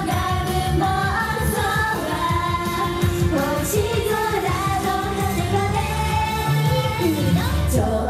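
Japanese idol pop song: the group sings over a backing track with a steady beat.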